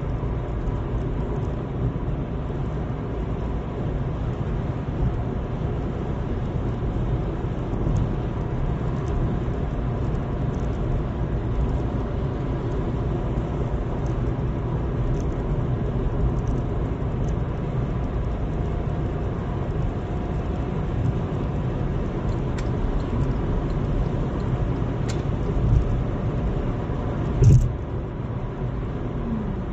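Steady road and engine noise inside a car cruising on a highway, mostly a low rumble, with a short thump near the end.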